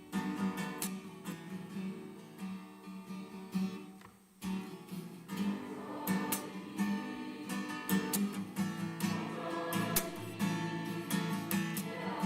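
Acoustic guitar strumming a kapa haka accompaniment, with a brief break about four seconds in.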